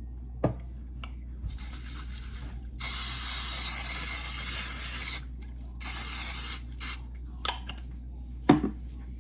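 Cooking oil spray hissing onto a pan: one long spray of about two seconds, then a shorter one and a quick puff. A sharp knock comes near the end, with a smaller one about half a second in.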